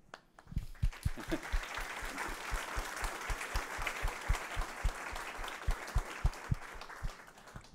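Audience applauding, starting just after the speaker finishes and dying away near the end.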